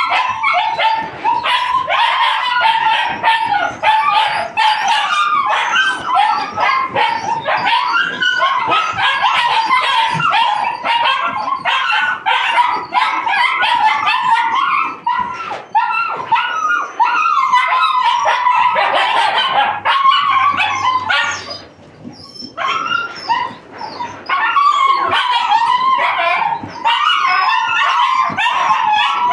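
A litter of puppies yipping, barking and whining without pause, many voices at once, with a short lull a little over twenty seconds in. The pups are very vocal, the sign of very high drive.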